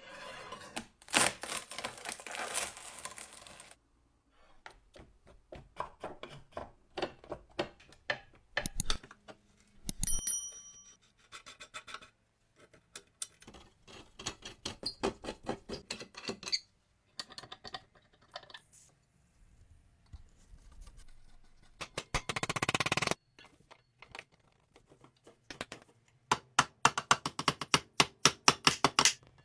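Metal parts of a rusty cast iron bread cutter being handled and worked on by hand: scrapes, clicks and clinks, with one ringing metallic ding about ten seconds in, a rasping stretch a little over twenty seconds in, and a fast run of sharp clicks near the end.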